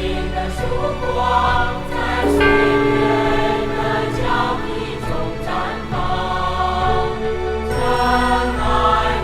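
Song with choir-like singing over a steady instrumental backing.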